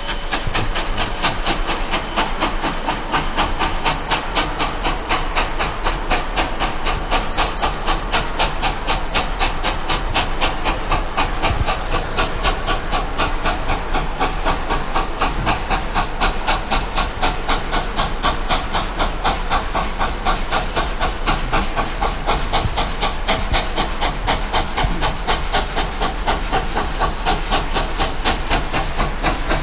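McCloud River Railroad No. 18, a 1914 Baldwin 2-8-2 steam locomotive, working as it approaches. Its stack exhaust chuffs in a quick, even rhythm over a steady steam hiss.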